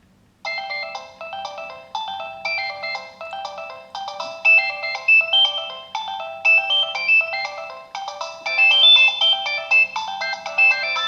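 Nokia 6070 mobile phone's polyphonic ringtone playing through its small loudspeaker, starting about half a second in: a quick melody of many short notes, thin, with no bass.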